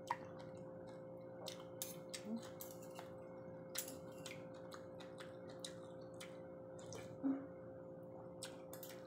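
Quiet eating sounds: scattered short clicks of a metal spoon and fork against a ceramic soup bowl and of chewing, over a steady low hum.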